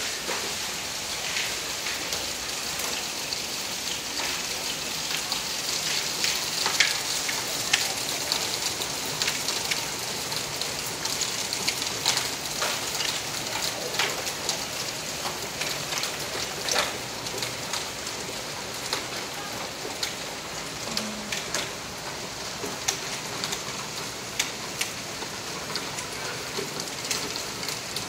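Hailstorm: hailstones falling and striking the ground, paving and shrubs, a dense steady hiss with many sharp ticks and clicks of single stones, busiest in the middle.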